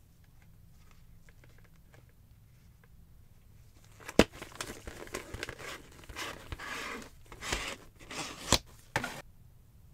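Clear plastic blister pack being pried apart from its cardboard backing card by hand: crinkling and crackling plastic with a few sharp snaps, starting about four seconds in and stopping shortly before the end.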